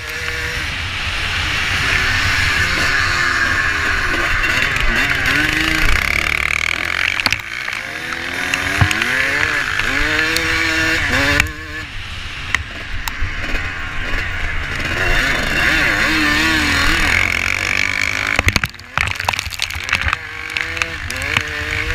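Onboard sound of a vintage motocross bike's engine under race throttle, its revs climbing and falling through the gears, with wind rushing over the microphone. The revs drop off sharply about eleven and nineteen seconds in, then build again.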